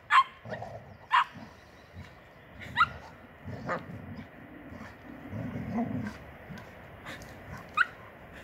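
Dogs at rough-and-tumble play, giving about five short, sharp barks and yips spread over several seconds, with longer low rumbling sounds between them.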